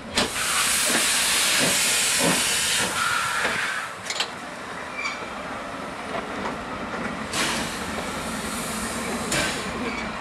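Gr.625 steam locomotive blowing off steam beside its cylinders in two long loud hisses: the first lasts about three and a half seconds, and the second starts about seven seconds in and lasts about two seconds.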